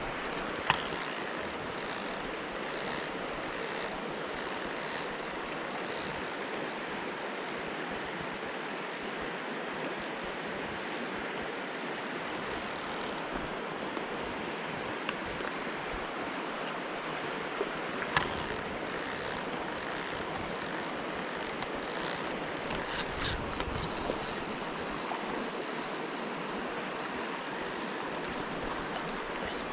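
Mountain stream water rushing steadily, with a few sharp clicks: one about a second in and a couple more past the middle.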